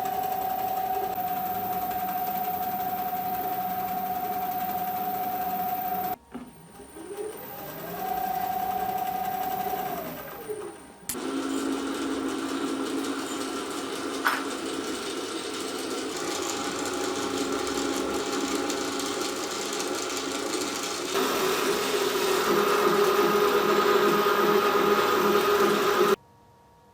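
Myford ML7 lathe running on its variable-speed motor drive, a steady mechanical whine with a hum. After a sudden drop, the motor tone rises smoothly in pitch, holds, then falls as the speed is ramped up and back down. It then runs again with a denser, rattlier sound that gets louder part way through and stops abruptly near the end.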